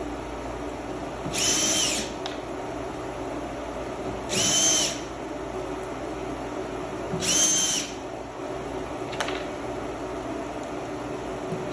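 Power drill driving wood screws into a wooden cornhole board frame in three short bursts about three seconds apart, each a brief motor whine that spins up and winds down. The bursts are kept short so the screws seat without stripping the wood.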